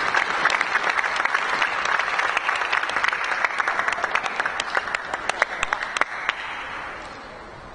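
Arena crowd applauding between points in a table tennis match. The clapping thins to scattered claps and dies away about six to seven seconds in.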